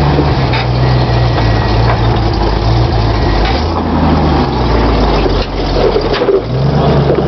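Lifted Ford Bronco's engine running at low revs while rock crawling, its pitch stepping up and down a few times as the throttle is worked, with a few faint knocks.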